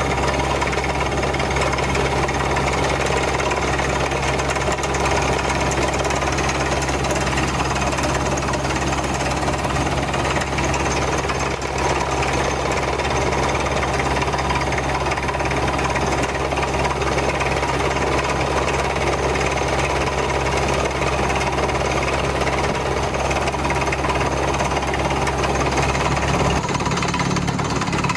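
Beretta T44 drilling rig drilling a water borehole: a steady engine drone under continuous, dense drilling noise. The low engine note changes near the end.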